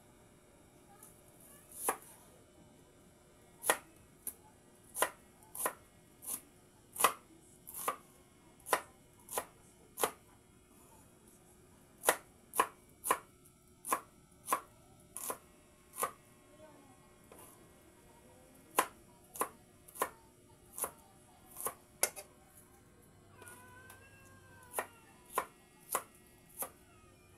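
Kitchen knife chopping on a cutting board: single sharp cuts about one and a half a second, in runs broken by short pauses.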